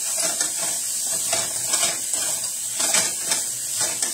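Sliced turkey sausage sizzling in a frying pan while it is stirred with a utensil, which scrapes and clinks against the pan several times a second.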